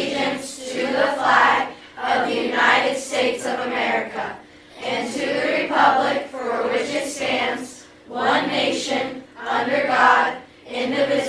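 A group of people reciting the Pledge of Allegiance together, in phrases of a second or two with short pauses between them.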